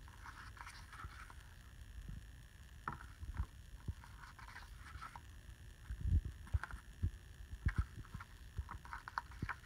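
Glossy pages of a hardcover DVD book being turned and smoothed by hand: irregular soft paper rustles with scattered low thumps of handling.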